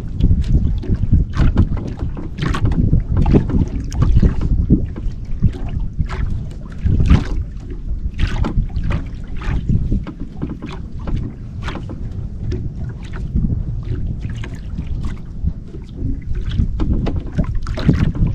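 Wind buffeting the microphone over water lapping against the hull of a small outrigger canoe, with many short, irregular splashes and knocks throughout.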